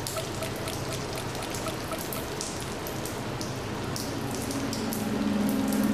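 A steady crackling, rain-like hiss of sound-design ambience, with faint beeps about three a second that fade away and a low drone swelling near the end.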